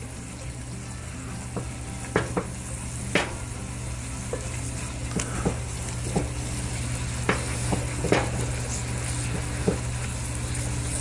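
Chicken, onions and broth sizzling in a cast iron Dutch oven while silicone-tipped tongs scrape and stir along the bottom, knocking irregularly against the iron as the browned fond is worked loose to deglaze the pot.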